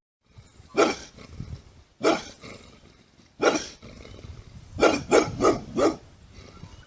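Bulldog barking: three single deep barks spaced a little over a second apart, then a quick run of four barks near the end.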